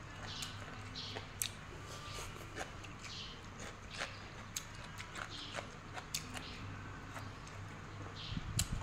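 Someone chewing mouthfuls of crunchy cucumber salad with soft rice noodles close to the microphone: irregular crisp crunches and wet mouth clicks, with a steady low electric-fan hum underneath.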